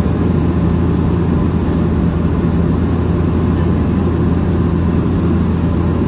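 Steady drone of an airliner in flight heard inside the passenger cabin: engine noise and rushing air with a constant low hum and no change in pitch.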